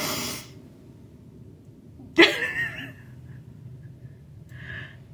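A woman's wordless shocked reactions, muffled by the hand over her mouth: a sharp breath at the start, then a short stunned vocal sound about two seconds in.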